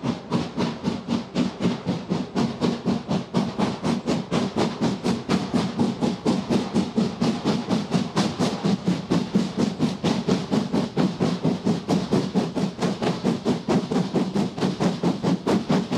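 Andrew Barclay industrial saddle-tank steam locomotive working a train of wagons, its chimney exhaust giving quick, even chuffs over a steady hum that grow slightly louder as it approaches.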